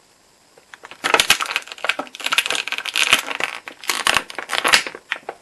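Toy packaging crinkling and crackling as it is handled and pulled open, in quick irregular bursts from about a second in until near the end.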